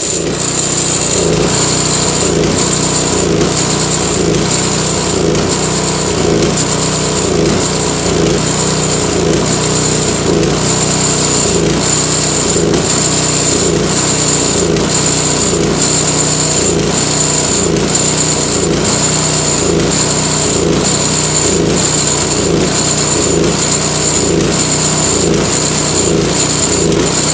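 Toro Power Clear 721 R snowblower's 212cc four-stroke engine running steadily, with an even rhythmic pulsing about three beats every two seconds and a high whine pulsing along with it.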